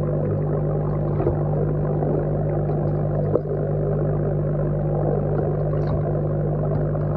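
Aquarium aeration heard underwater: a steady low hum with a dense bubbling hiss from an air stone's stream of rising bubbles, and one sharp click about three and a half seconds in.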